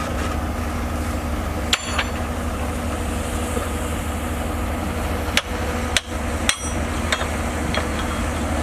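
Bulldozer's diesel engine running steadily, with four sharp metallic clanks spread through it, three of them close together past the middle.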